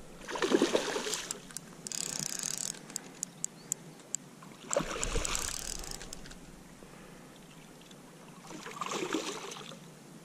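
A hooked barbel splashing at the surface as it is drawn over the landing net, in four separate bursts of splashing, with a few sharp ticks between the first bursts.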